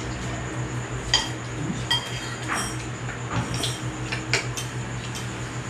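Spoons clinking and scraping against bowls while people eat noodle soup: a string of irregular, sharp clinks, some with a brief ringing tone, over a steady low hum.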